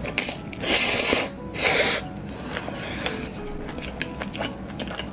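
Jjapagetti black-bean instant noodles slurped into the mouth in two loud pulls about a second in, followed by wet chewing with small clicks.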